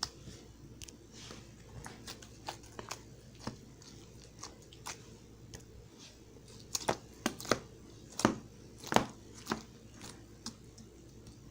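Slime being squeezed and poked by hand, giving irregular wet clicks and crackling pops, with a run of louder pops past the middle.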